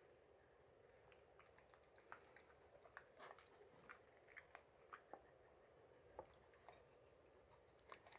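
A beagle chewing crunchy tempura crumbs (tenkasu): faint, irregular small crunches.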